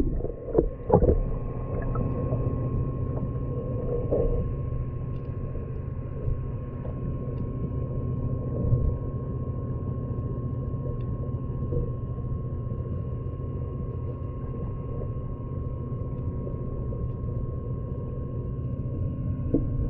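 Koi pond water heard with the microphone under the surface: a steady, muffled low rumble with a constant faint hum. A few splashes come in the first second.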